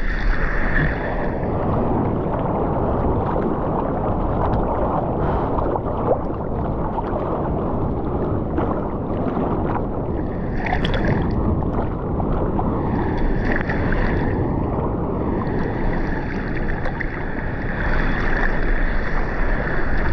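Sea water sloshing and splashing against a camera held at the surface while a bodyboarder paddles, with wind on the microphone. The sound is a steady rushing wash, with brighter splashy patches about halfway and again in the last few seconds.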